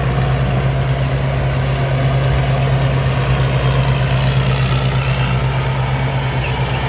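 Thai Seng Yont rice combine harvester running while it harvests: a loud, steady heavy engine drone with a constant high whine over it.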